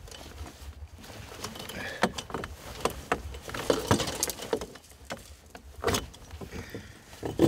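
Wire spring-clip muskrat trap clinking and rattling as it is worked open by hand, with irregular metallic clicks and a few sharper knocks.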